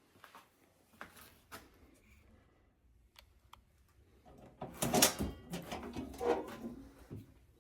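Handling noises: scattered light clicks and knocks, then about two seconds of louder rustling and clattering a little past halfway.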